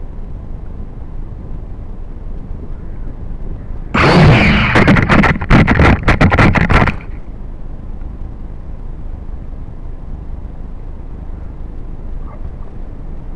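Steady wind noise on the microphone, broken about four seconds in by a loud burst of some three seconds full of rapid knocks as the downed quadcopter drone's motors spin up and it tumbles over in the grass.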